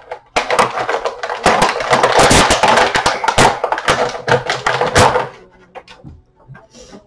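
Plastic and cardboard toy packaging crinkling and rustling with many sharp clicks and taps as an action figure is worked out of its box, dying down to a few faint ticks after about five seconds.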